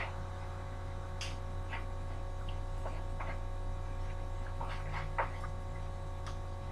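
Scattered light clicks and taps of a hula hoop as it spins around the body and arms, at irregular times, the sharpest a little past five seconds in, over a steady low hum.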